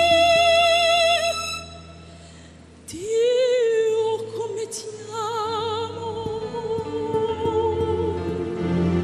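A woman sings an Italian ballad with a live band. She holds a high note with vibrato that ends about a second and a half in, there is a short hush, and then she comes back in about three seconds in on a lower held note, again with vibrato, over soft accompaniment.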